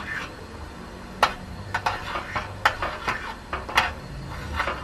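A utensil stirring ginger and palm-sugar water in a pot on the stove, knocking against the pot several times at irregular intervals, to dissolve the sugar.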